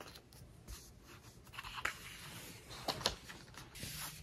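Pages of a large photobook being handled and turned: faint paper rustling with a few light ticks, the loudest pair about three seconds in, and a brushing swish near the end.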